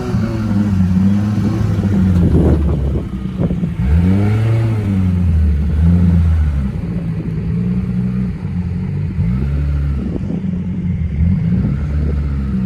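Off-road 4x4's engine revving in surges, its pitch rising and falling several times, as a stuck vehicle strains to get free during a recovery.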